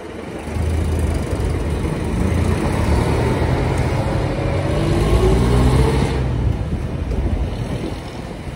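A motor vehicle's engine running close by in street traffic: a low rumble comes up about half a second in, its pitch climbs as it accelerates, and it falls away after about six seconds, leaving general traffic noise.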